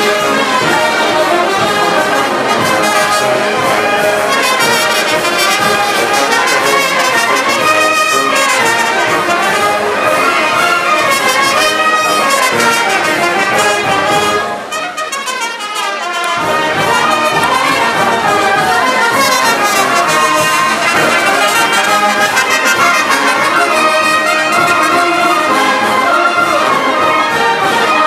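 Brass band playing dance music. About halfway through, the low notes drop out for a couple of seconds, then the full band comes back in.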